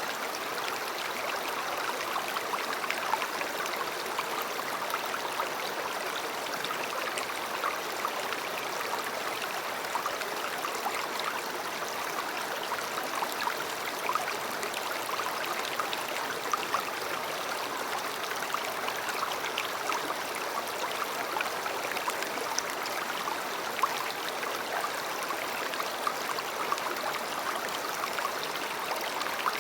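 A river or stream flowing steadily over stones, a continuous rushing and burbling with many small splashes.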